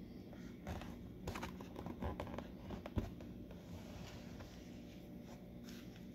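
Faint handling sounds of small clips being pushed onto the rim of a biodegradable cremation float: a scattering of light clicks and rustles, the sharpest about three seconds in, over a low steady hum.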